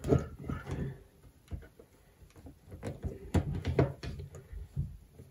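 Handling noise from a copper-wire coil wound on a plastic conduit former, pressed and turned on a wooden board: a run of irregular light knocks, clicks and scrapes.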